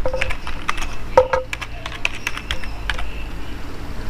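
Typing on a computer keyboard: a quick, uneven run of key clicks as a word is entered.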